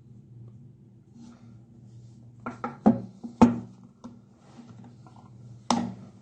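Handling noise during the unboxing of a phone case: a quick cluster of four sharp clicks and taps around the middle and one more knock near the end, over a low steady hum.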